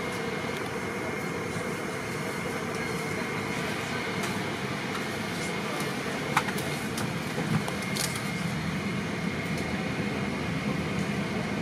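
Steady hum and hiss of ventilation or running machinery with a faint, constant high whine, broken by a couple of light clicks about six and eight seconds in.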